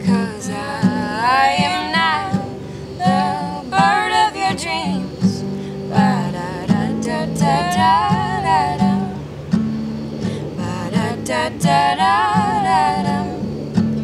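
Steel-string acoustic guitar strummed in a steady chord pattern while women sing, their long held notes wavering with vibrato in several phrases.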